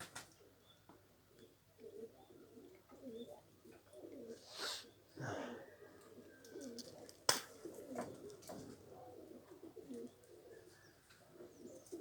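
Domestic Nikolaev pigeons cooing over and over, low warbling coos. There is a short noisy burst about four and a half seconds in and a single sharp click a little past seven seconds.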